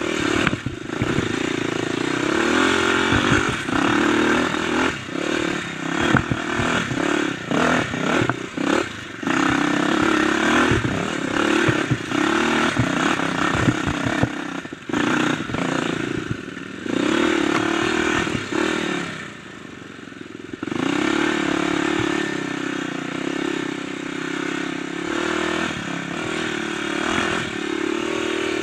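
Kawasaki dirt bike engine running close up, revving up and dropping with the throttle over rough singletrack, with frequent knocks and clatter as the bike hits bumps. About two-thirds through the engine eases off briefly to a quieter stretch before pulling again.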